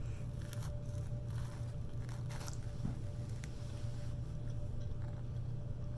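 Close-miked chewing and biting of spicy chicken, with irregular small crunches and wet mouth clicks over a steady low hum.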